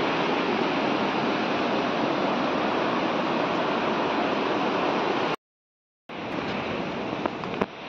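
Steady, even rushing noise that stops abruptly about five seconds in, then returns quieter with a few sharp clicks near the end.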